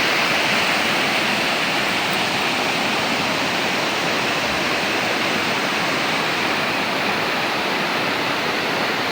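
Steady rushing water of a mountain waterfall, an even, unbroken rush with no other events.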